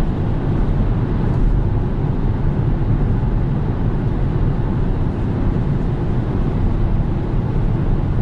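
Steady road and tyre noise with engine drone inside the cabin of a Kia Soul Booster cruising at motorway speed.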